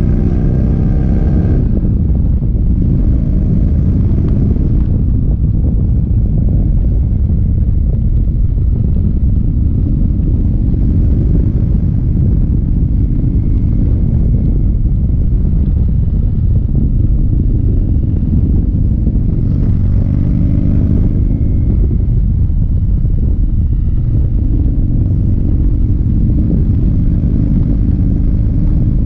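1985 Harley-Davidson FXRT motorcycle's 1340 Evolution V-twin running at road speed, heard from the saddle under a loud, steady low rumble of wind on the microphone.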